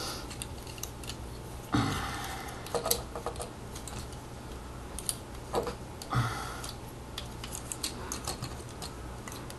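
Plastic parts of a Transformers action figure clicking and rattling as it is twisted and folded by hand, with two louder scraping handling noises about two and six seconds in. A steady low hum lies underneath.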